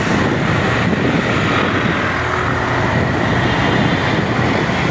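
Auto-rickshaw driving along a road, its small engine and road noise heard loud and steady from inside the open passenger cab.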